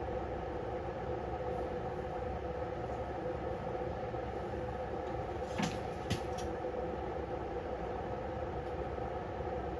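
A steady mechanical hum with a few fixed pitches, and two or three light clicks a little past halfway.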